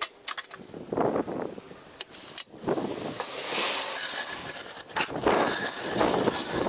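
Irregular metal clinks, clanks and scrapes from a long-handled floor jack being worked under the front of a car.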